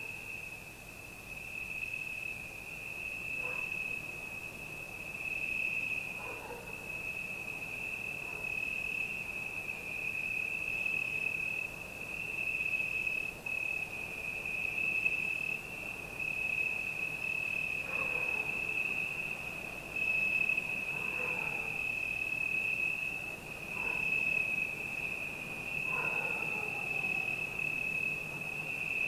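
Crickets trilling in a steady, unbroken chorus, with a few faint, short falling calls every few seconds underneath.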